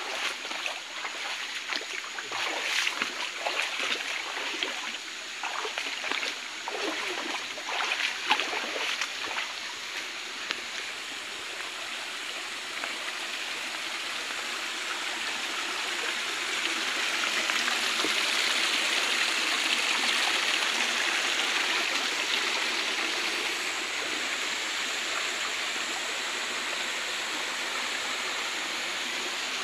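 Shallow forest river running over rocks, with irregular splashing steps through the water for the first ten seconds or so. The rushing water swells louder around the middle and then eases slightly.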